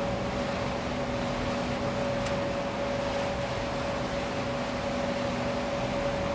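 Steady mechanical drone of a river cruise boat's machinery heard on the open deck: a constant hum with one clear steady tone, over an even rushing noise.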